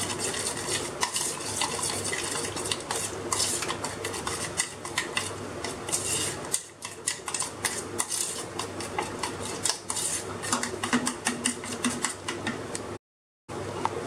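Metal spoon stirring a thick mustard-paste and mustard-oil marinade in a stainless-steel tiffin box, with quick repeated clinks and scrapes of spoon against steel. The sound drops out for about half a second near the end.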